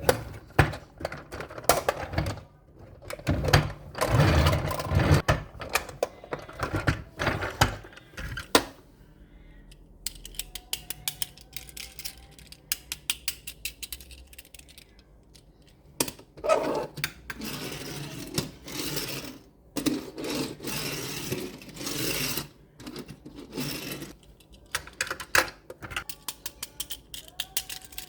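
Handling of small diecast toy construction trucks: rapid clicks and rattles of small metal and plastic parts, with stretches of rustling in between.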